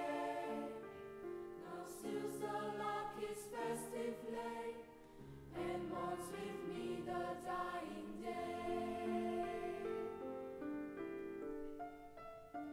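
A mixed secondary-school choir of girls and boys singing slow, held chords in several parts, growing softer near the end.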